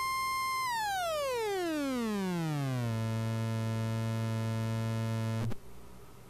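XR2206 function generator test board putting out a triangle-wave test tone, held steady at about 1 kHz, then swept down over about two seconds to a low hum near 100 Hz. The low tone holds for a few seconds, then cuts off suddenly with a click about five and a half seconds in.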